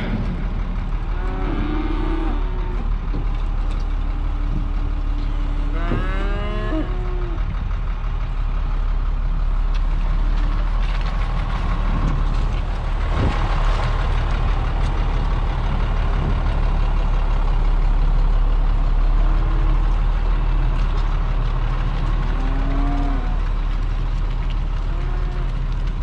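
Beef cattle mooing several times, the loudest call about six seconds in, over the steady running of a tractor engine.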